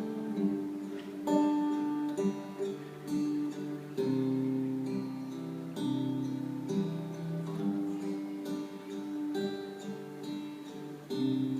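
Acoustic guitar strumming chords, changing every second or two, with no singing.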